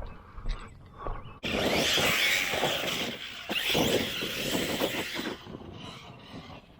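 Arrma Kraton 6S V5 BLX brushless RC truck running hard over dirt and gravel. Its motor and tyres start suddenly loud about a second and a half in, keep going for about four seconds, then fade.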